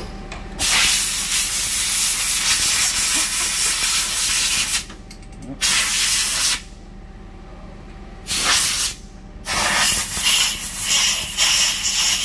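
Compressed-air blow gun blasting in four bursts, a long blast of about four seconds, then two short ones and another long one, to clean chips out of a lathe tool holder and collet seat.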